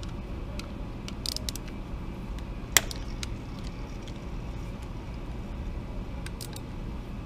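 Scattered light clicks and taps of a hand driver and socket working on the wet clutch's pressure-plate spring bolts as they are loosened, with one sharper click about three seconds in, over a steady low background hum.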